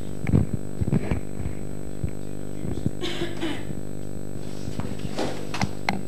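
A steady low electrical hum with a buzz of many overtones, with scattered soft knocks and a brief rustle about three seconds in.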